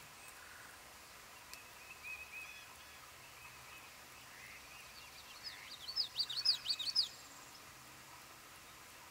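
A Common Yellowthroat singing one short, loud burst of rapid high notes about five and a half seconds in, lasting under two seconds. Fainter bird calls come about two seconds in, over a quiet hiss of outdoor ambience.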